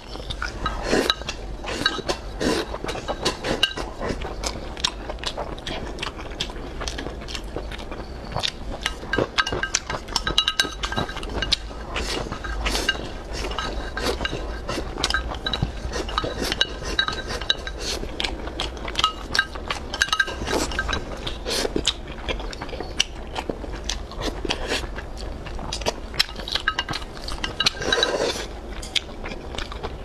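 Chopsticks clicking and scraping against a ceramic rice bowl in rapid, irregular clinks as rice is shovelled into the mouth, with chewing mixed in.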